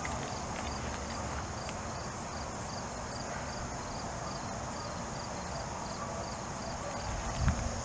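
Outdoor insect chorus: a steady high buzz with a regular chirp a few times a second, over low rumbling background noise. A dull thump comes near the end.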